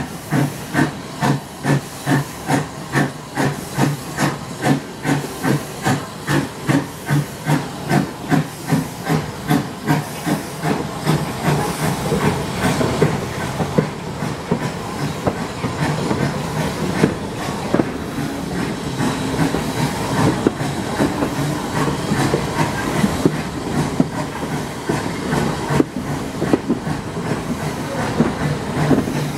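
Steam locomotive exhaust beats, heard from a carriage of the train it is hauling. The chuffs quicken as the train gathers speed and blend into a steady rushing sound about halfway through.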